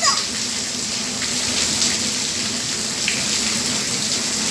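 Steady rain falling on a wet concrete yard and its puddles.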